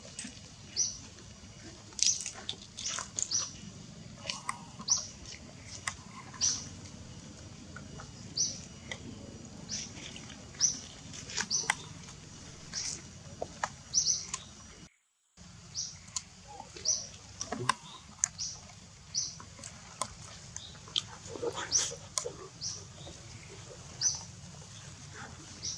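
Short high-pitched chirping calls repeating about once a second, with a few light clicks over a steady low background.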